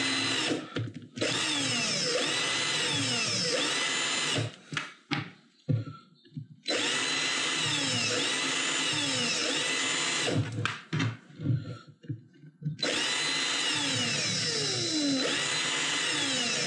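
Cordless drill-driver running in three spells of about four seconds each, its motor whine rising and falling in pitch as it backs out the screws of small green screw-terminal connectors. Short clicks and handling noises fill the gaps between the runs.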